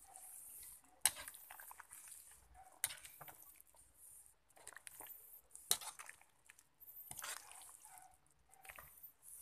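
A cooking utensil stirring through a metal wok of simmering chicken broth with malunggay leaves, clinking sharply against the pan three times over the soft bubbling of the broth.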